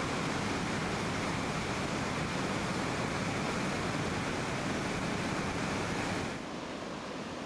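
Steady, even rushing of river water. About six seconds in it becomes a little quieter and duller.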